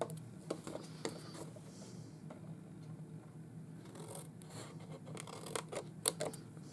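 Scissors snipping through scored cardstock: a couple of single snips in the first second or so, then a quicker run of snips in the second half.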